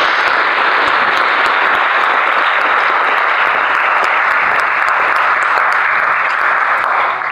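Audience applauding steadily in a church sanctuary, the clapping dying away near the end.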